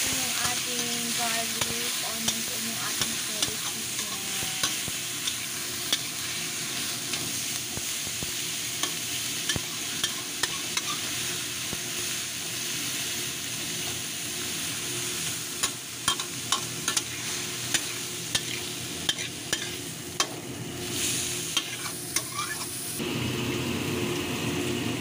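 Shredded chicken and sliced onions sizzling in hot oil in a stainless steel wok while a spatula stirs them, scraping and clicking against the pan many times.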